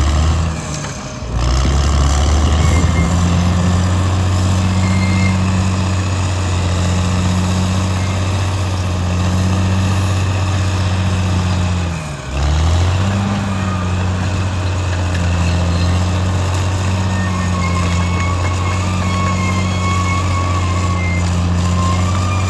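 Caterpillar D6R XL bulldozer's diesel engine running steadily. Its note dips briefly twice, about a second in and near the middle, then picks back up. A thin high whine joins near the end.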